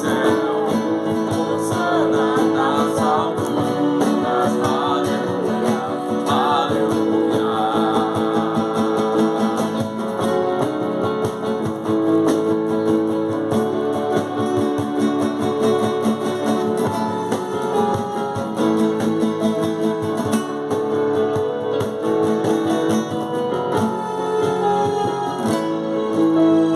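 Acoustic guitar strumming chords of a worship song, in a steady instrumental passage.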